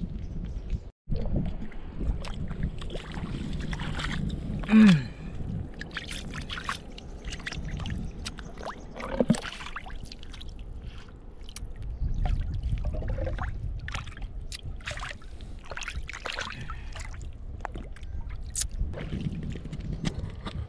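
Shore water sloshing and lapping as a steady low wash, with scattered sharp clicks and knocks. A short, loud sound falling in pitch comes about five seconds in.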